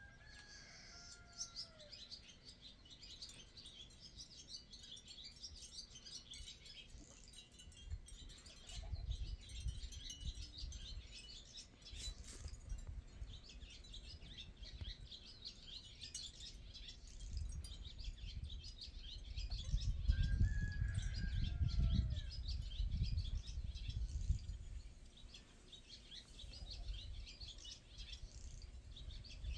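Barn swallows twittering, a fast unbroken run of high chirps, with a few short gliding notes near the start and again about two-thirds in. A low rumble swells twice, loudest about two-thirds of the way through.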